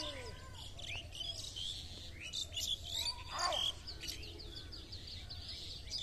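Several birds chirping and calling in quick, overlapping phrases, with a denser burst of calls about three and a half seconds in, over a steady low rumble.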